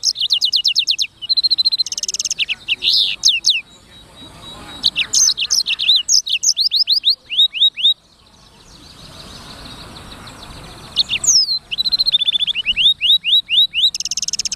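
Blackthroat (black-throated canary) singing: phrases of rapid trills made of quick, downward-sweeping high notes, with a pause of about three seconds past the middle.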